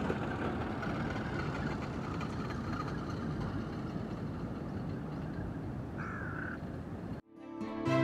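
Steady low outdoor rumble with one short bird call about six seconds in. The sound cuts off abruptly just after seven seconds, and soft piano music begins near the end.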